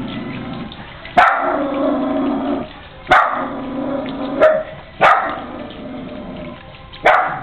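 A dog barking five times at irregular gaps, each bark sharp at the start and trailing off, over the steady trickle and splash of a small garden fountain.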